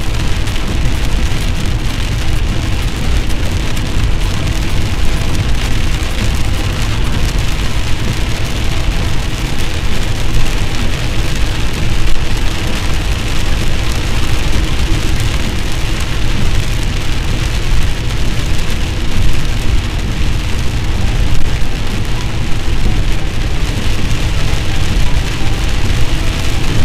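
Heavy rain drumming on a car's windshield and roof, heard from inside the moving car, over a steady low rumble of the car driving on the wet road.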